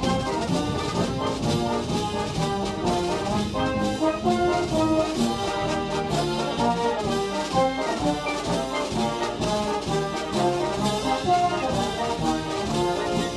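Military band playing, led by brass: trumpets, trombones and horns in full chords.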